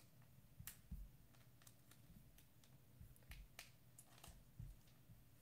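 Faint, irregular clicking of a computer mouse and keyboard, about ten clicks, over near-silent room tone.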